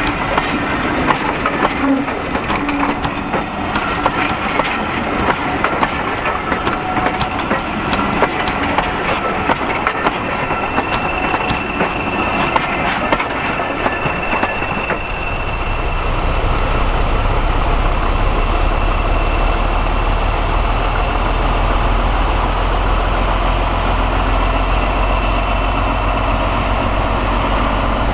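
Passenger coaches rolling past with their wheels clicking over the rail joints, and a thin high squeal for a few seconds near the middle. From about halfway a diesel locomotive's engine takes over as a steady low thrum as the loco draws close.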